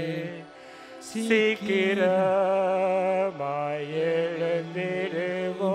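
Men singing a Tamil Christian hymn with electronic keyboard accompaniment, holding long notes. The music dips briefly about half a second in, then the voices come back in.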